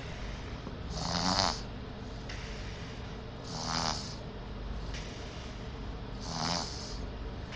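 Baby snoring in sleep: three short rattling snores about two and a half seconds apart.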